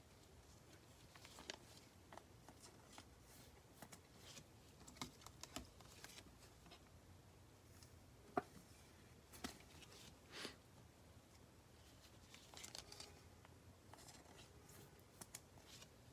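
Faint, scattered rustles and light clicks of trading cards being handled and slid against each other, with a few sharper taps.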